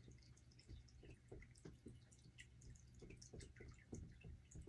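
Near silence: room tone with a low hum and a few faint, scattered small ticks.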